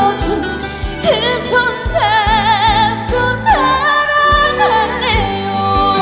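A woman singing a Korean trot ballad over a backing band, holding long notes with a wide vibrato, with a steady low beat underneath.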